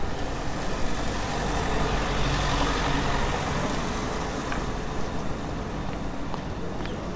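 A motor vehicle passing on a street, a low engine rumble with road noise that swells about two to three seconds in and then eases off.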